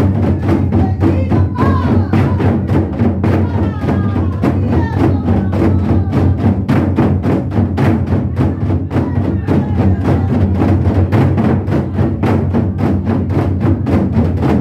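Modeumbuk, a set of Korean barrel drums, struck in a fast, even stream of about five or six strokes a second over backing music with a steady low bass and a wavering melody line.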